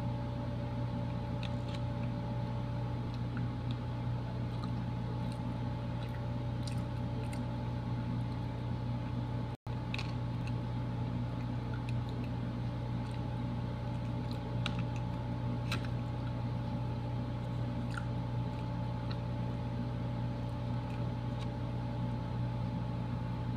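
A steady low machine hum, with scattered faint clicks and soft eating sounds from a plastic spoon scooping leche flan out of a plastic container and chewing. The sound cuts out for an instant about ten seconds in.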